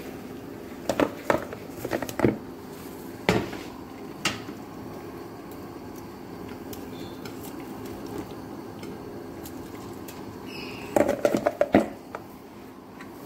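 Metal cookware clinking and knocking as a metal bowl and utensil meet a cooking pan: a cluster of clinks in the first couple of seconds, two single knocks, then a quick run of clinks about eleven seconds in as the fried chicken is tipped into the sauce. A steady low hum runs underneath.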